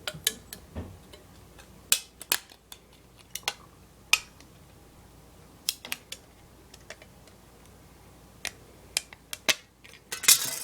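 Small pocket-knife scissors snipping through thin aluminium can metal: sharp, irregular clicks, a few a second, with a pause of a couple of seconds midway.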